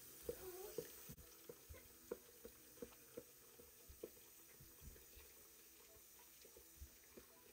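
Faint swishing of a hand stirring and rubbing rice in water in a steel pot while washing the rice, with soft, irregular knocks against the pot about two or three times a second.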